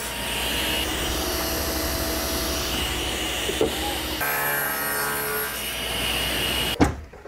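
Table saw with a flat-top blade cutting a rabbet in a wooden board, the motor and blade running steadily under load. A little after four seconds in it turns to a steadier whine, and the sound stops abruptly near the end.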